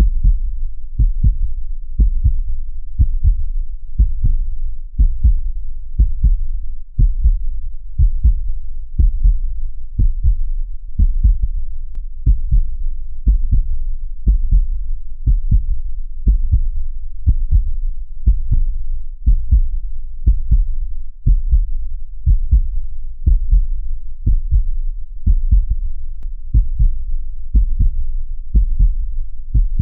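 Heartbeat: a steady, slow rhythm of low, dull thumps falling in close pairs, the lub-dub of each beat.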